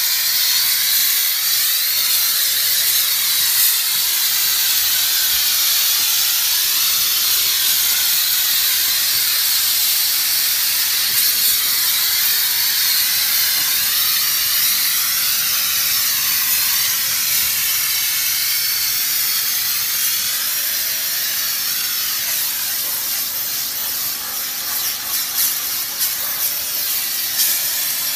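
Heavy-duty 8-bar steam cleaner's lance jetting steam in a steady, loud hiss as it is worked over a car's paintwork. The hiss dips and flickers a few times near the end.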